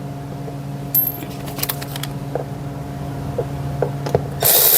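Small metallic clicks and rattles of a tool working a 7mm screw out of the bottom edge of a car door panel, over a steady low hum. About four and a half seconds in, a loud rushing noise starts.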